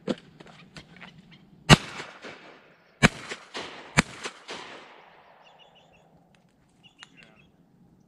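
A duck hunter's shotgun fired several times in quick succession: one shot right at the start, then three louder shots roughly a second apart, each followed by a trailing echo across the pond.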